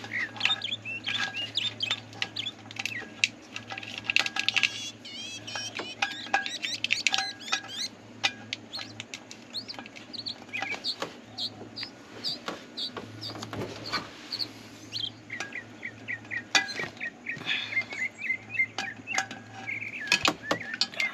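Small birds chirping and twittering repeatedly, with a quick trill about five seconds in, over a steady low hum and scattered sharp clicks and knocks.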